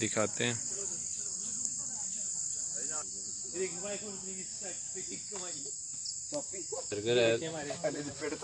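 Steady, high-pitched insect chorus droning without a break, with people's voices talking over it about halfway through and again near the end.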